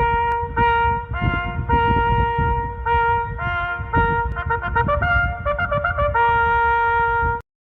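A Federal Signal Thundermod electronic siren's loudspeaker plays a trumpet-like bugle-call tune: a string of clear held notes, with a quick run of short notes in the middle. It cuts off abruptly near the end.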